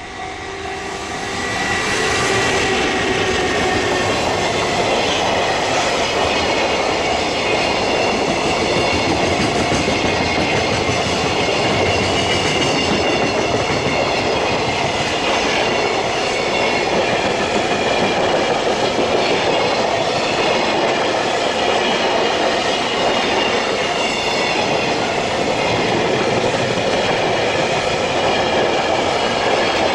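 Freight train hauled by an EF210 electric locomotive passing close by, its wheels rolling and clattering over the rails in a loud, steady rumble. It swells over the first two seconds, then holds steady.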